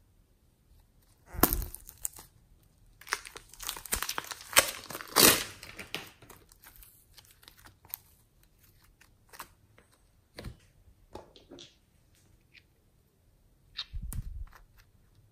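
Plastic piping bag crinkling and crackling as it is handled and squeezed, with a sharp burst about a second and a half in and dense crackling for a few seconds after. Then scattered soft clicks and pops as the soft clay is stretched and pressed, with one more crackly burst near the end.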